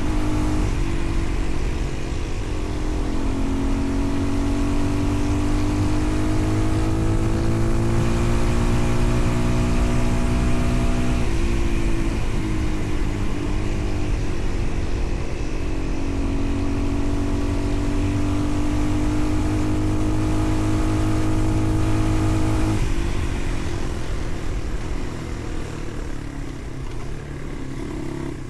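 A vehicle engine under load, its pitch climbing slowly and then dropping abruptly twice, about 11 and 23 seconds in, as it shifts up through the gears, over steady road and wind noise.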